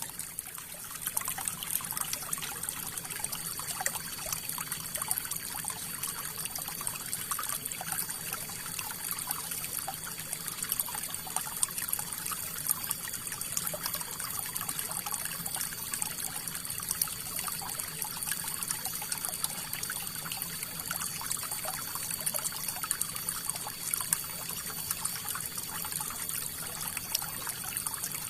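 River water flowing and trickling steadily, a continuous noise dotted with many small splashes.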